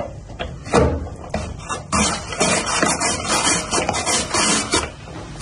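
Hand-cranked rotary drum grater shredding raw potato: a few knocks of handling, then from about two seconds in a continuous rough rasping scrape as the drum turns.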